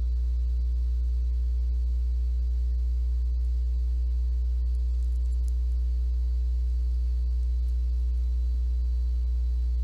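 Steady low electrical hum, with a few fainter higher tones above it, holding unchanged throughout.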